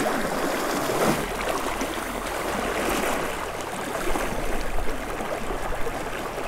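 Clear, shallow mountain river rushing over a rocky riffle: a steady rush of flowing water.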